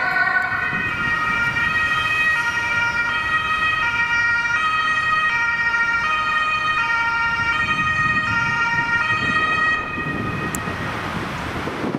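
German ambulance two-tone siren (Martinshorn) sounding, alternating steadily between a high and a low tone, over road traffic. It cuts off near the end, leaving traffic noise.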